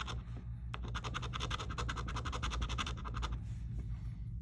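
A coin scratching the coating off a scratch-off lottery ticket in quick back-and-forth strokes, stopping about three and a half seconds in.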